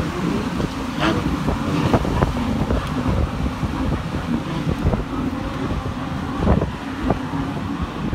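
Wind buffeting the microphone with a low rumble and frequent thumps. Under it runs a faint, steady, low drone of a boat engine.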